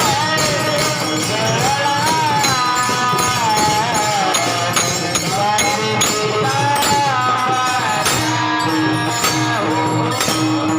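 Marathi devotional kirtan music: a high voice sings a gliding melody over steady jingling hand percussion.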